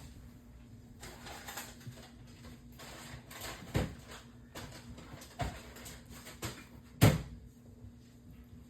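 Rustling and several sharp knocks, the loudest about seven seconds in, like things being handled and set down or a door or cupboard moving.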